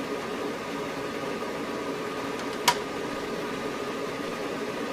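Steady background noise of bench test equipment running, with one sharp click a little under three seconds in: a button press switching the signal generator from a square wave to a sine wave.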